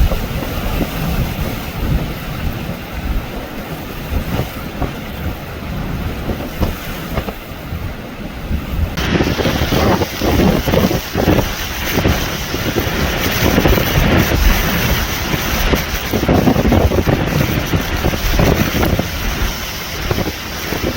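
Hurricane wind blowing hard and buffeting the microphone in a continuous rumbling rush. It grows louder and gustier about nine seconds in.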